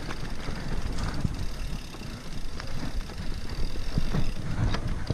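E-mountain bike riding down a rough dirt forest trail: uneven rumble of the tyres over the ground with wind on the microphone, broken by several sharp knocks and rattles from the bike over bumps.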